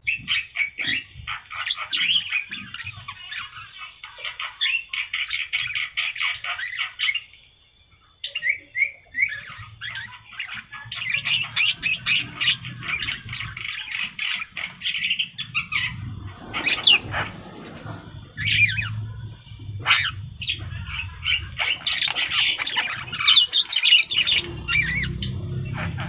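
Caged Javan myna in full song: long runs of rapid, chattering squawks and whistles, breaking off briefly about eight seconds in before starting again. A low hum sits underneath in the second half.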